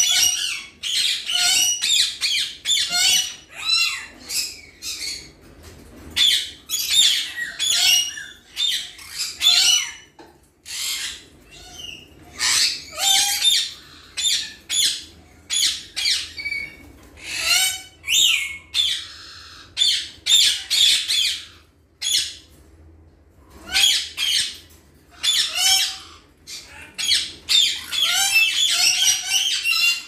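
Caged parrots squawking, harsh calls following one another in quick succession with only brief pauses.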